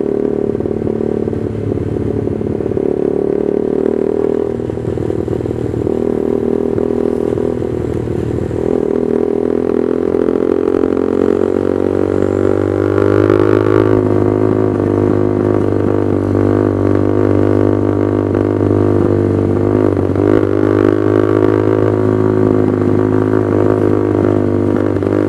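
Honda CB150R motorcycle's single-cylinder engine running through a loud Proliner aftermarket exhaust while riding. It runs at lower revs at first, then speeds up and gets louder about ten seconds in, and holds a higher, steady note after that.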